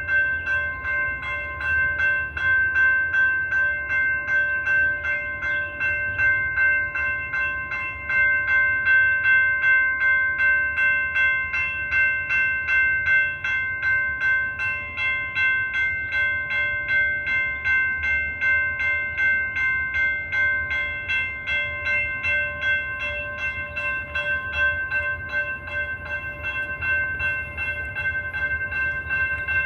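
Railroad crossing warning bell ringing continuously in rapid, even dings while the crossing signals flash. The crossing is activated with no train present: a signal malfunction.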